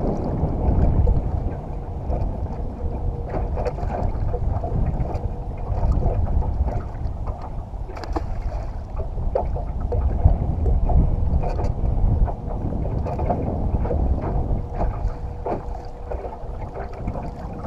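Wind rumbling on the microphone, with scattered light knocks and clicks throughout.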